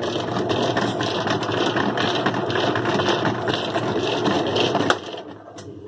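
Kenmore 70 Series direct-drive washing machine running on slow spin, a dense rattling whir that drops off markedly about five seconds in.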